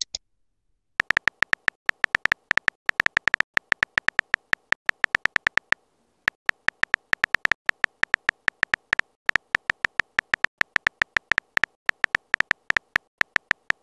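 Phone keyboard typing clicks from a texting app: fast, irregular short ticks with a slight pitched ring, one per letter, with a brief pause about six seconds in.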